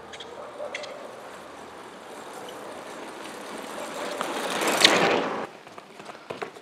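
Bicycle riding over concrete paving toward a camera at ground level. Its tyre noise grows louder to a peak about five seconds in as it passes close by, then drops away sharply. A few light footsteps follow near the end.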